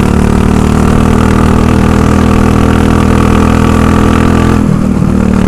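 Go-kart engine running steadily at speed on the track, its note dipping briefly near the end and then picking up again.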